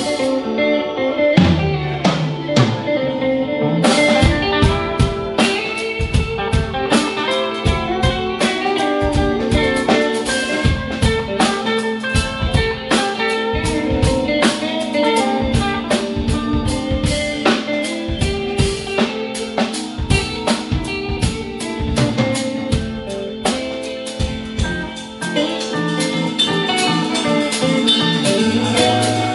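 Live rock band playing a song: electric guitars, drum kit and keyboard, with the drums picking up about four seconds in.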